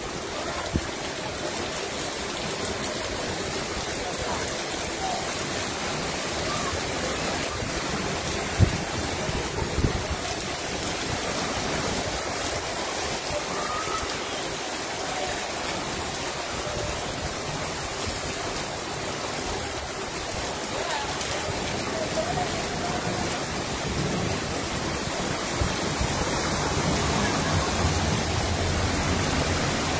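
Heavy rain pouring steadily onto a flooded street, with floodwater running along the road. A single sharp knock about eight and a half seconds in, and a low rumble building near the end.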